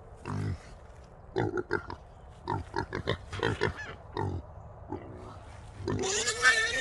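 Trapped feral hogs grunting in short calls, then one letting out a loud, drawn-out squeal about six seconds in.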